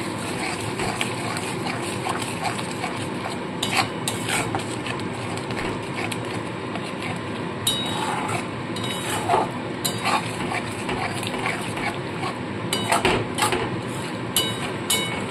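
Metal spatula stirring and scraping a thick masala paste of cashew and melon-seed (charmagaj) paste in a metal kadai, with scattered clicks and knocks of the spatula against the pan. Under it the paste sizzles steadily as it fries.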